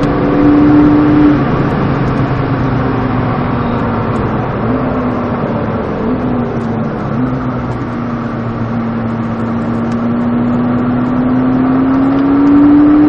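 McLaren sports car's engine under load, heard from inside the cabin on track. Its pitch drops about a second in, holds fairly level with a few small steps, then rises slowly near the end as the car accelerates.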